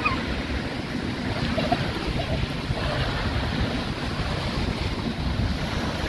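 Small waves breaking and washing up on a sandy shore, a steady rush of surf, with wind buffeting the microphone.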